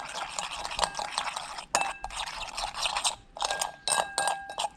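Spoon stirring a thick sauce-and-spice marinade in a bowl, scraping and clinking irregularly against the bowl's sides, with one sharper clink about two seconds in and brief faint ringing after some strokes.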